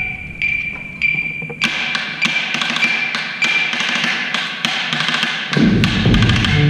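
A metronome beeping evenly, a little under twice a second. About a second and a half in, the drumline's snare and tenor drums come in with rapid strokes over the beeps. Near the end a louder, lower pitched part joins.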